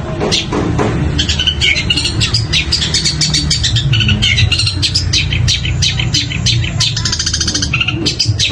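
Long-tailed shrike (cendet) singing a rapid, unbroken string of sharp, varied notes mimicking other birds such as woodpecker and sparrow calls, with a fast even trill about seven seconds in. A steady low hum runs underneath.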